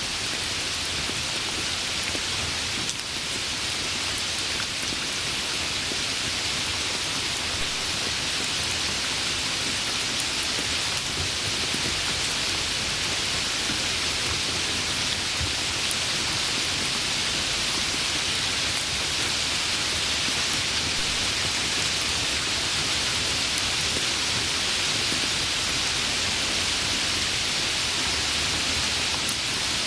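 Steady heavy rain, a constant even hiss without break.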